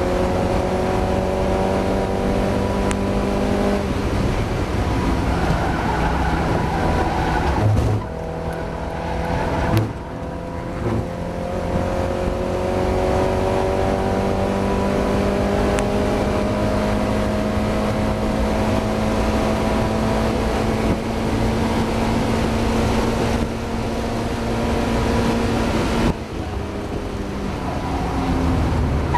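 Mazda MX-5 race car's engine heard from onboard under hard driving, its pitch climbing steadily through long pulls. It breaks off for gear changes or lifts about four seconds in, around eight and ten seconds, and near the end, over steady road and wind noise.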